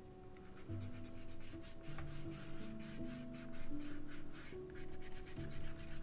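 Pencil scribbled rapidly back and forth on drawing paper, about five scratchy strokes a second, stopping near the end. Soft background music plays underneath.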